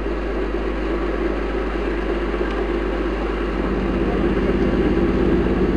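Diesel engine of a Fuchs six-wheeled armoured vehicle running steadily as the vehicle rolls slowly, with a fast even pulse; the engine note gets a little louder and fuller about halfway through.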